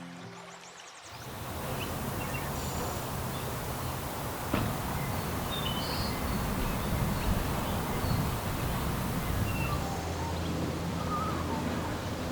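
Outdoor ambience: a steady rushing noise with scattered short, high bird chirps and calls, and one sharp click about four and a half seconds in.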